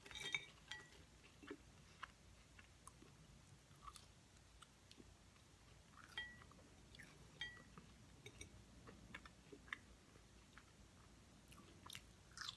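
Faint close-up chewing of thin French fries, with scattered small clicks and a few light clinks as fries are picked up.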